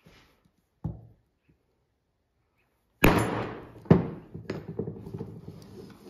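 Mallet striking a maker's-mark stamp into belt leather. A light knock comes about a second in, then two hard strikes about three and four seconds in and a lighter one after, each followed by ringing.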